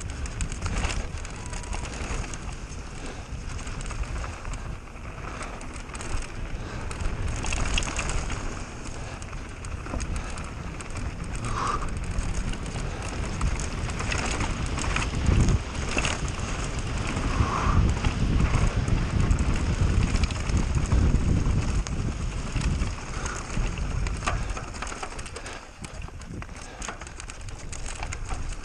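Mountain bike riding fast down a rough trail: tyres rumbling over stones and dirt, and the bike rattling with many small knocks.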